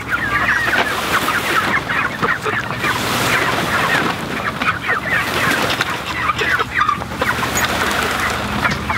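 A flock of young barred rock chickens calling continuously, many short overlapping calls at once.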